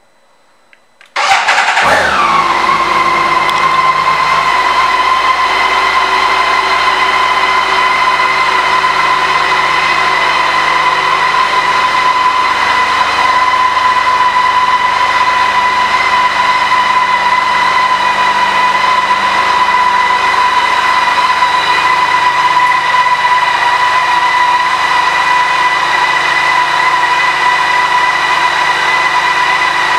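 BMW K 1600 GTL's inline-six engine starting about a second in, its revs flaring briefly and falling back to a steady idle. A steady high-pitched tone sits over the idle throughout.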